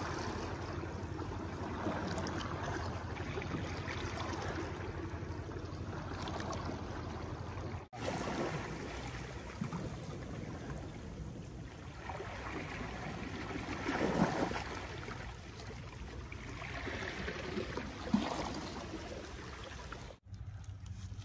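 Shallow sea water washing and lapping among seaweed-covered rocks at the shoreline, swelling now and then as a wave runs in. The sound breaks off abruptly about eight seconds in and again near the end, where the shots change.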